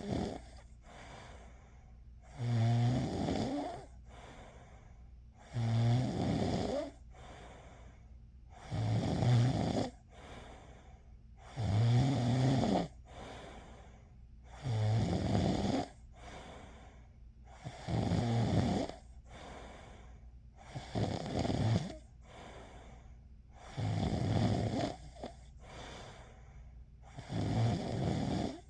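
A person snoring in a steady rhythm, about one snore every three seconds, each lasting about a second, with a fainter breath between snores.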